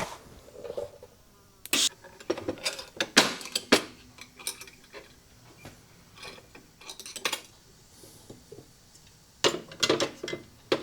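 Metal parts and tools being handled on a workbench: scattered metallic clinks and knocks at irregular intervals, with a denser cluster near the end.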